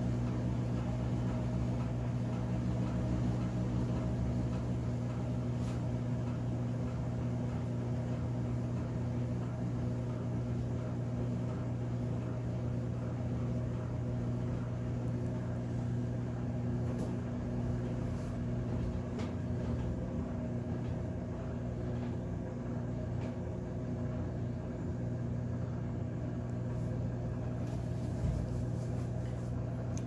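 Brastemp BWK14 14 kg top-load washing machine in its spin cycle, the drum of wet towels turning fast: a steady, even motor hum with a low droning tone.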